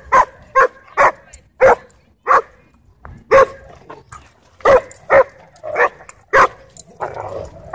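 A dog barking excitedly during tug-of-war play: about ten short, sharp barks at an uneven pace, with a rougher, noisier moment near the end.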